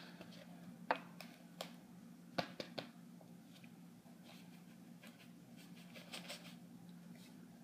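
Faint clicks and taps from kitchen containers and a measuring cup being handled while sugar is measured out, with a soft rustle near the end, over a low steady hum.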